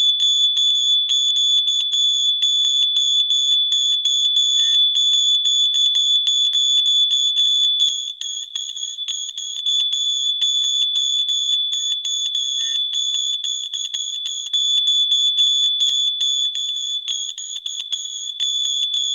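Electronic fire alarm sounding continuously: a loud, shrill, high-pitched tone with a fast, regular flutter.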